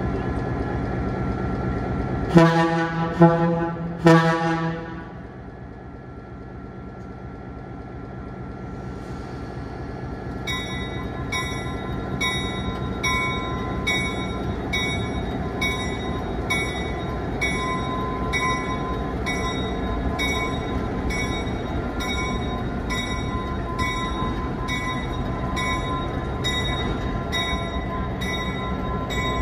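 EMD F3 diesel locomotive running, its 16-cylinder 567 two-stroke diesel engine running steadily, with two short air-horn blasts a few seconds in. From about a third of the way through, a bell starts ringing steadily at about one and a half strikes a second as the engine sound grows louder.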